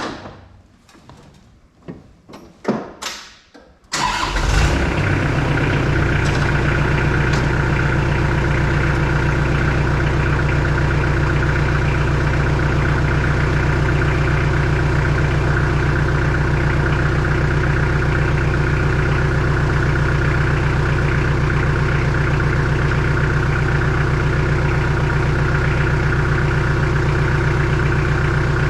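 A few knocks and clicks, then about four seconds in the Kubota L48 tractor loader backhoe's diesel engine starts and settles into a steady idle, run to test the newly fitted hydraulic quick-connect coupler for leaks.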